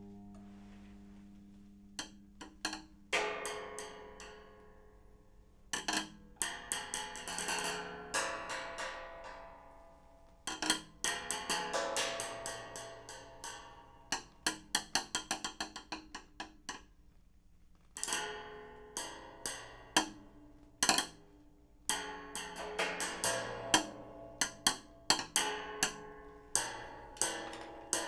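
Improvised percussion on homemade found-object instruments, a tall wooden panel and curved sheets, struck with sticks and mallets. Single hits and quick runs of strokes, each leaving a pitched ringing tone, come in irregular phrases with short pauses between them.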